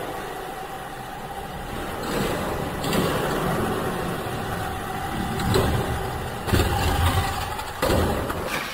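Tamiya Sunny Shuttle Mini 4WD car running laps on its track: the small electric motor and gears whirring steadily, with several sharp knocks as the car's rollers and body strike the lane walls, louder near the end as it comes closer.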